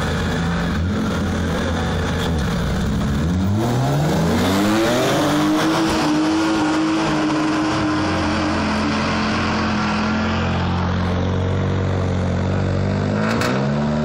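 Two BMW E30 3 Series cars launching from a drag-race start: engines running at the line, then about three and a half seconds in a hard acceleration, the engine note rising for a couple of seconds and holding high as the cars pull away down the strip. Near the end another car's engine revs up at the start line.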